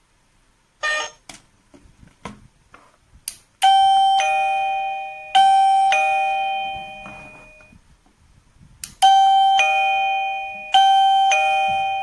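Coolqiya wireless doorbell receiver playing a two-note ding-dong chime four times, high note then lower note, each ringing out and fading. This is the tune it plays once it is paired with its push-button transmitter. About a second in there is a short ding and a few light clicks of the buttons.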